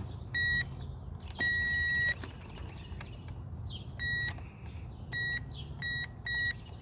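Power Probe circuit tester beeping as its tip is touched to fuse after fuse: about six short high beeps at uneven intervals, one held longer about a second and a half in. The tone means voltage is present at the fuse, showing it good.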